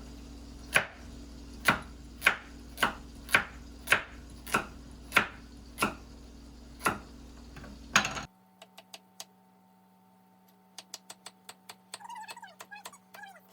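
Crinkle-cut knife pressed down through raw vegetables onto a cutting board: about a dozen sharp chops, roughly one every half second. They stop abruptly about eight seconds in, leaving a quiet stretch with a few faint ticks.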